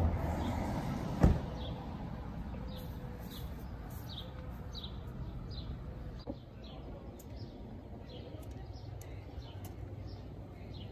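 A pickup truck's door slams shut once, about a second in. After it a small bird keeps chirping, short falling chirps every half second or so, over a low steady outdoor background.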